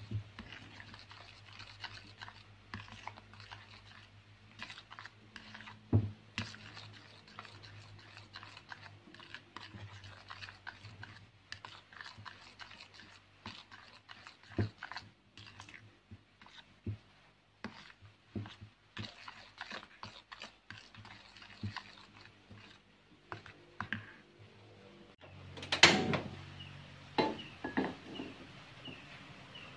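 Spatula stirring and scraping thick batter in an enamel bowl: a run of soft, irregular wet clicks and taps. Near the end a loud knock with a short ring as a nonstick frying pan is set on the stove, followed by a few lighter knocks.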